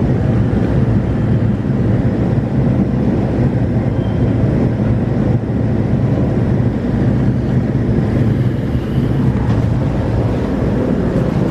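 Steady low rumble of an electric commuter train running, heard from inside the passenger car.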